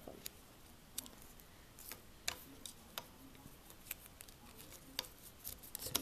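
Faint, scattered clicks and crackles of duct tape being folded over and pressed down onto the back of a switch plate.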